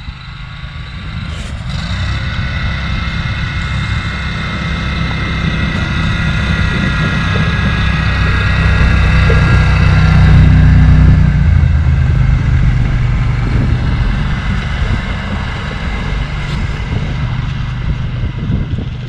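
Krosh all-terrain vehicle with a 30 hp Lanchin engine driving across thin ice. The engine note grows steadily louder as it approaches, is loudest about ten seconds in, then fades as the vehicle moves away.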